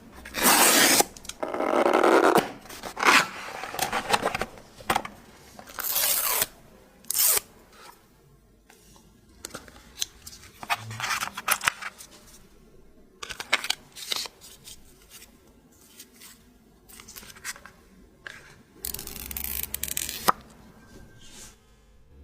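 Packaging noises from unboxing a new iPhone 14 Pro Max: repeated bursts of tearing, rustling and scraping of paper wrap and cardboard, with small clicks and taps in between.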